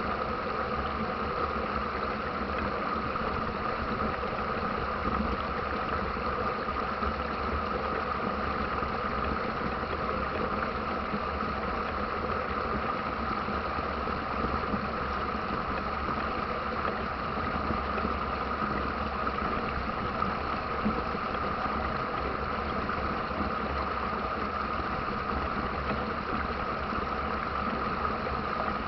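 River rapids rushing with a steady, unbroken roar of water.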